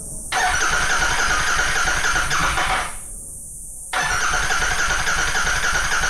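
Royal Enfield 650's electric starter cranking its parallel-twin engine in two long attempts, about a second apart, with the engine turning over but not firing. The owner suspects a weak battery or the bike's original relays.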